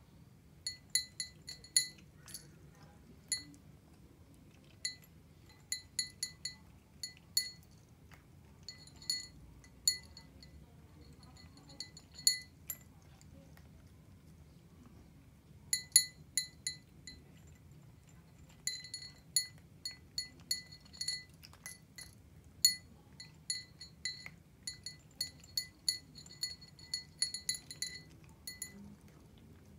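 Persian cat eating dry kibble from a small glass bowl: sharp, ringing clinks in clusters with short pauses between them, the longest run in the second half.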